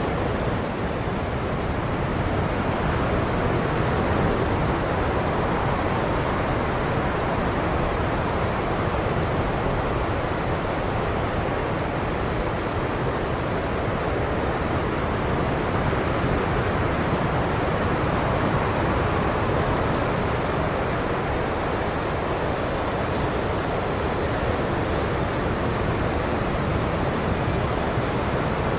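Ocean surf washing steadily on a beach, with no single wave breaks standing out.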